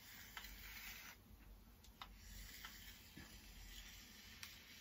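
Near silence, with the faint swish of a hair straightener's plates gliding down a section of long hair, twice, and a few soft clicks.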